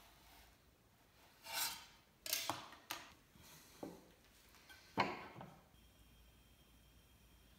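Hand tools and wood being handled on a wooden workbench: a short sliding rub, a few sharp clicks and taps, and a louder knock about five seconds in as pieces are set down.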